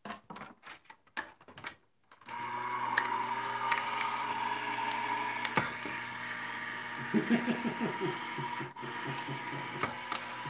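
Vagabond 2 electric die-cut machine starting up about two seconds in, after a few handling clicks, then running steadily with a constant motor hum as it rolls the die and cardstock through.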